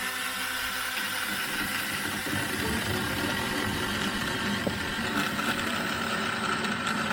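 Cordless Tingmengte mini chainsaw with an 8-inch bar running steadily under its electric motor after both its safety and trigger buttons are pressed, sawing into a branch. Its sound grows brighter about five seconds in.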